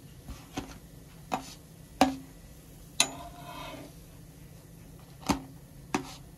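Spatula clicking and knocking against a non-stick tawa as fried roat are lifted off it: about six sharp, separate taps, with a short scrape about three seconds in.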